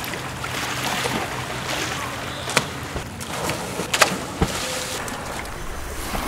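Sea water splashing and sloshing as people jump off a concrete pier into the sea, with a few sharp slaps of water, the loudest about two and a half and four seconds in.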